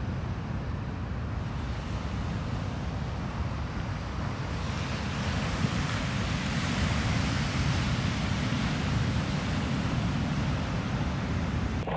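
Ocean surf washing on the beach, with wind buffeting the microphone in a steady low rumble. The hiss of the surf swells about halfway through.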